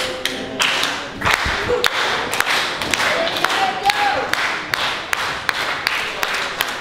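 Small crowd clapping in a fairly even rhythm of about three claps a second, with cheering and a raised voice from the crowd in the middle.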